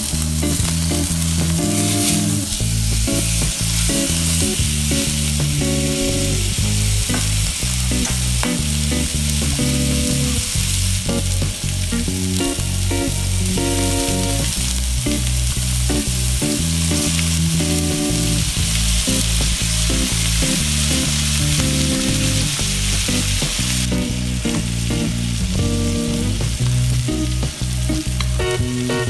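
Rib-eye steak sizzling steadily as it sears in a hot nonstick frying pan, with butter foaming around it near the end.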